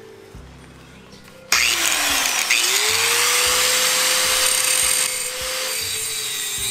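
Electric angle grinder with an abrasive cut-off disc switching on about a second and a half in: its whine rises to full speed, then it cuts into a steel pipe, the level dipping slightly as the disc bites into the metal.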